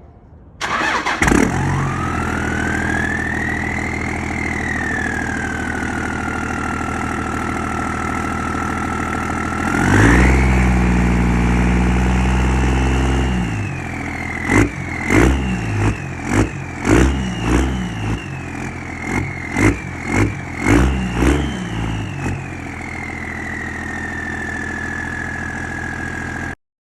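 24-valve Cummins 5.9-litre inline-six turbo diesel starting up and running with a loud turbo whistle that rises and falls in pitch. About ten seconds in it is held at higher revs for a few seconds, then blipped sharply many times in quick succession, the whistle wavering with each blip. It then settles back to a steady run, the whistle slowly falling.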